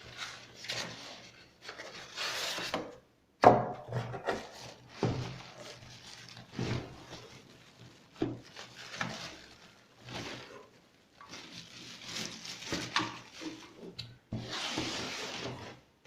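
A boxed product being unpacked by hand: irregular rubbing, scraping and rustling of the box and packing material, with a sharp knock about three and a half seconds in.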